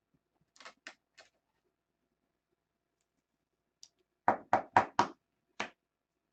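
A few faint light clicks, then a burst of four quick sharp knocks on a hard surface, about four a second, and one more knock half a second later.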